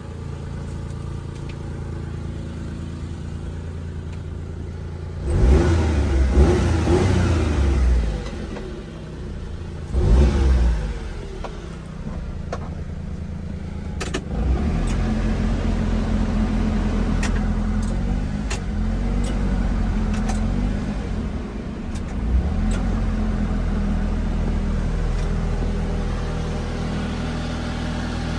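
The 1996 Mitsubishi Minicab kei truck's small three-cylinder engine idling steadily. It is revved twice, about five seconds in and again about ten seconds in, then settles back to idle. A few light clicks come in the second half.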